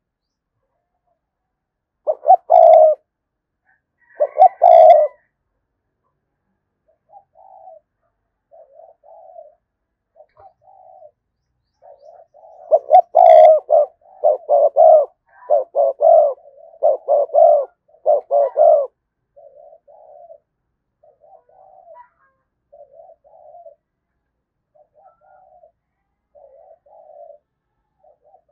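Spotted dove cooing: two loud coos early on, then a string of soft short coos about one a second, a louder quick run of coos in the middle, and soft short coos again near the end. This is the decoy bird's excited 'gù' cooing, used to lure wild spotted doves.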